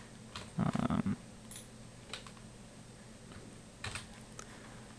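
Keys and buttons tapped on a computer keyboard and mouse: a quick run of clattering taps about a second in, then a few scattered single clicks.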